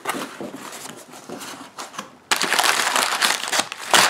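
A knife slitting the packing tape down the middle of a cardboard box. About two seconds in, a louder crackling rustle follows as the flaps are opened and crumpled brown packing paper is handled.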